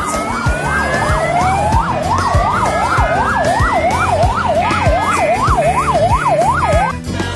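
Electronic siren wailing in a fast yelp, its pitch swinging up and down about two and a half times a second, with slower rising sweeps laid over it, until it cuts off about seven seconds in. Music with a steady beat runs underneath.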